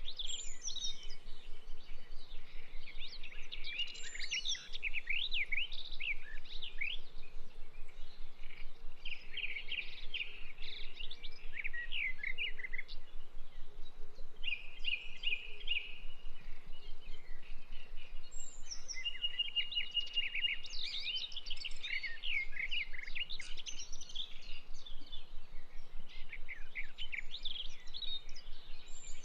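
Birds chirping and singing: quick high trills and twittering phrases in groups with short pauses between them, over a faint steady background hiss.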